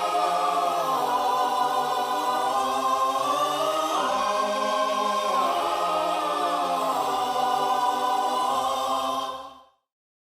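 Background music of sustained, choir-like voices holding slowly shifting chords, cutting off abruptly about nine and a half seconds in.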